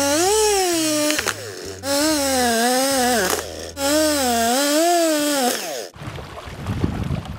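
Two-stroke chainsaw sawing through a fallen tree trunk in three long runs with short letups between them, its pitch dropping and rising within each run. About six seconds in it gives way to wind noise on the microphone and lapping water.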